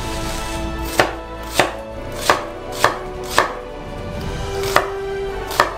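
A kitchen knife cutting down through a halved onion onto a wooden cutting board. About seven separate sharp knocks come irregularly, half a second to a second apart.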